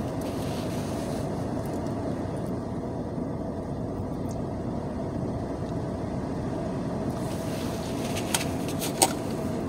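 Steady low hum of a car's interior with the engine or blower running, with a faint held tone in it. Two sharp clicks come a little before the end, the second louder.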